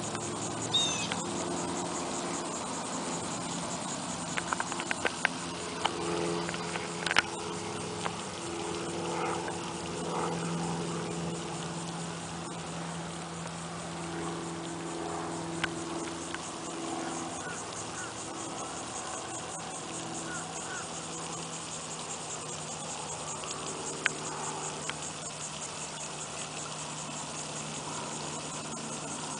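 Pond-side outdoor ambience: a steady high insect trill over a low steady hum, with a few small clicks about four to seven seconds in.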